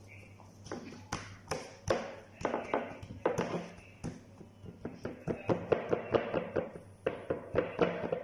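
Fingertips patting and pressing pizza dough out across a round pan: an irregular run of quick soft taps and knocks, starting about a second in and growing busier in the second half.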